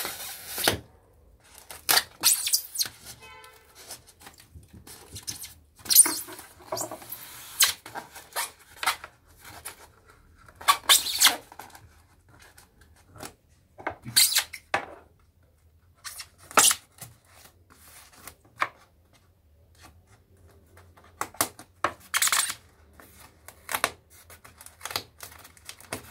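Expanded polystyrene (Styrofoam) shipping box being worked open by hand and with a knife: irregular scraping and tearing strokes of blade and foam, with a brief squeak about three seconds in.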